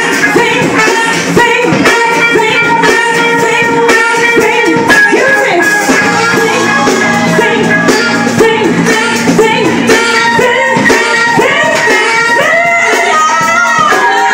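Live band playing loudly, with women singing into microphones over electric guitar and drums, recorded up close on a mobile phone.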